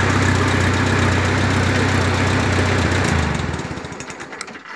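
1949 Farmall Super A's four-cylinder engine idling steadily. About three seconds in it is shut off and runs down, its firing slowing and fading out over about a second and a half. A few light clicks come near the end.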